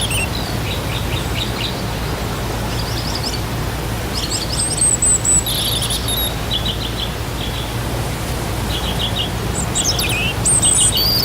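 Steady rushing of a waterfall, with a small bird calling over it in short, high, chirping trills several times.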